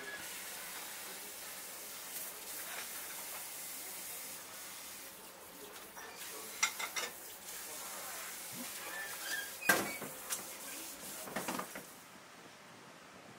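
Kitchen work sounds: a steady hiss with a few sharp knocks and clatters, the loudest nearly ten seconds in. The hiss drops away near the end.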